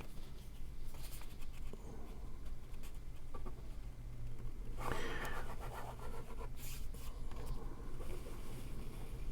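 Paper being handled on a table: faint rubbing and rustling with light ticks, loudest about five seconds in, over a steady low hum.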